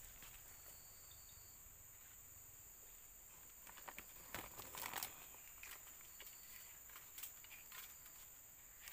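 Faint, steady high-pitched drone of forest insects, with short high chirps now and then. Rustling and a few clicks come about four to five seconds in.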